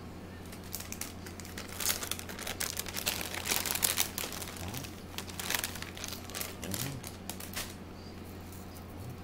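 Crinkling and rustling: a dense run of small crackles and clicks that starts about a second in and dies away near the end, over a steady low hum.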